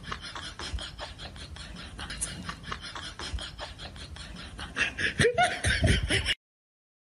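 A person laughing softly off camera in quick breathy pulses, growing louder near the end before stopping abruptly.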